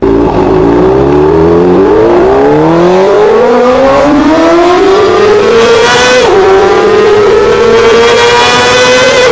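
An engine revving hard, its pitch climbing repeatedly, dropping back sharply about six seconds in, then holding high and steady.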